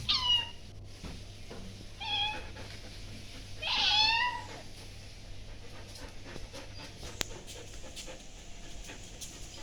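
Cat meowing three times, each call falling in pitch, the third, about four seconds in, the longest and loudest.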